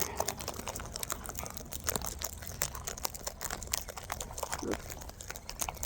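Wild parrots cracking and husking seed in their beaks close to the microphone: irregular, sharp clicks and crunches.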